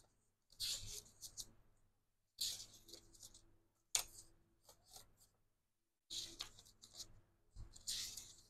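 Sheets of a booklet of thick, cardboard-feel scrapbook papers being flipped one at a time: a short papery rustle and flap about five times, roughly every one and a half to two seconds.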